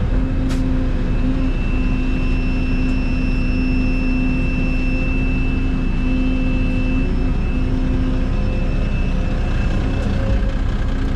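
Excavator's diesel engine running steadily under load, with a steady high whine over the engine note.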